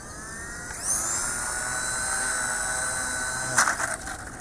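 Small RC helicopter (WLToys V922) spinning up: its electric motor and rotor rise in a climbing whine, then hold a steady high whine. Near the end a quick clatter of knocks as the model tips over and its rotor blades strike the ground, and the whine cuts off.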